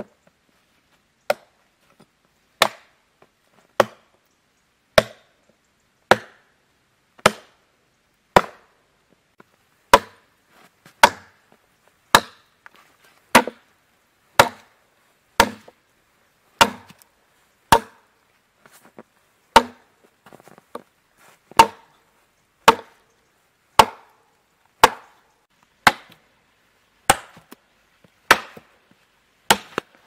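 Hatchet chopping a fallen log: sharp blows of the blade into the wood at a steady pace of about one a second, with quiet between strokes.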